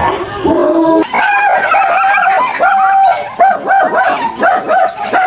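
A dog barking and yipping in a rapid, high-pitched run that starts about a second in, with a few calls drawn out longer, in alarm at life-size stuffed big-cat toys.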